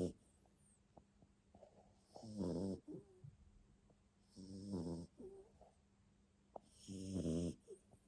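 Jack Russell terrier snoring in its sleep: three rattling snores about two and a half seconds apart, each followed by a brief, softer breath.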